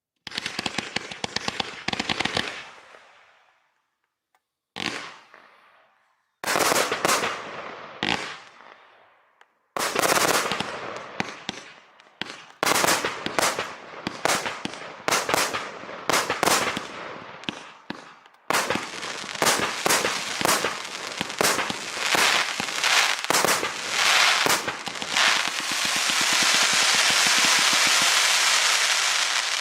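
A 122-shot fan-pattern fireworks cake with 0.8-, 1- and 1.2-inch shots firing. Volleys of rapid sharp shots come with short pauses between them, and near the end the firing merges into one continuous dense barrage.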